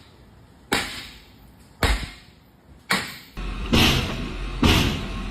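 A regular series of sharp knocks or thuds, about one a second, each dying away quickly. A little past halfway a steady low hum comes in and the knocks become louder.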